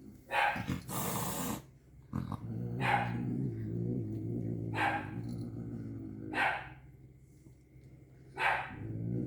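A cat growling angrily while it eats medicine gel: a low, steady growl broken by short sharp outbursts every couple of seconds, with a longer hiss about a second in.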